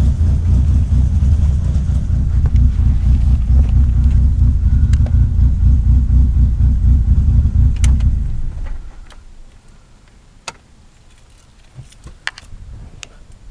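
1998 Mitsubishi Eclipse RS engine running steadily, then shut off about eight seconds in. A few light clicks and taps follow in the quiet.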